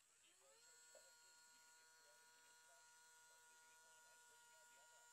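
Faint electric whine of a small motor that rises in pitch over the first half-second, then holds steady.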